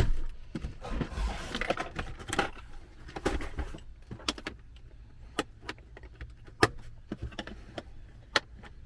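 Hand tools being packed back into a tool bag: a string of scattered metallic clicks and knocks, with rustling in the first couple of seconds.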